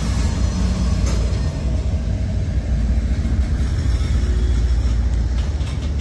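CSX freight train rolling past at close range: a steady, loud, deep rumble from the trailing diesel locomotive and the freight cars on the rails, with a few wheel clicks near the end.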